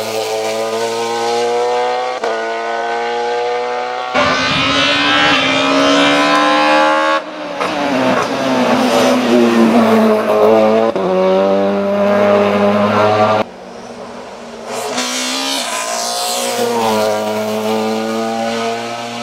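BMW E36 320i STW race car's 2.0-litre naturally aspirated four-cylinder running at high revs as it passes, its pitch rising and falling several times as it accelerates and shifts. The sound cuts abruptly a few times between passes.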